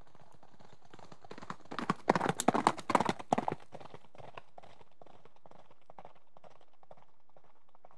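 A horse's hooves clip-clopping at a trot in a quick, uneven run of hoofbeats. They are loudest from about two to three and a half seconds in, then go on fainter.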